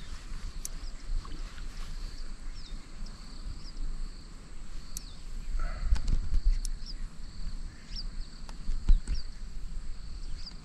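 Outdoor ambience at the water's edge: a low rumble of wind and moving water, with two stronger surges about six and nine seconds in. Over it, birds repeat short falling chirps every second or two above a steady thin insect hum.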